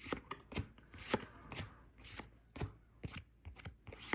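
Pokémon trading cards being flipped through in the hand, each card snapping or sliding off the stack with a short sharp click, about three a second and unevenly spaced.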